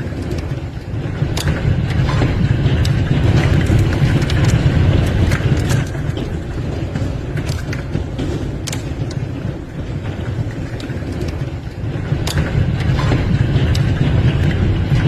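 Hailstorm: a steady, heavy roar of storm noise with hailstones striking hard surfaces in many sharp, irregular cracks.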